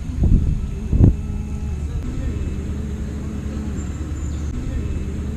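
Two knocks in the first second, then an engine running steadily with a low hum.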